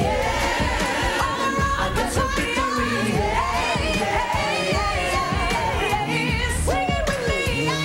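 Live gospel song: a woman's lead vocal and a backing choir singing over a band with a steady beat. Near the end, one long sung note swoops up and falls away.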